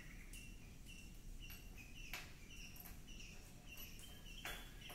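A bird calling faintly with a short, high chirp repeated about every half second, with two brief rustles of noise.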